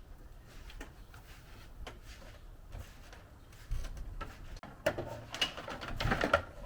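Scattered faint clicks, then a clatter of clicks and rattling from handling equipment, loudest in the last two seconds.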